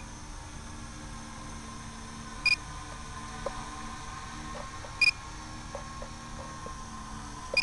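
Short, high electronic beep repeating evenly about every two and a half seconds, over a steady hiss and a faint hum.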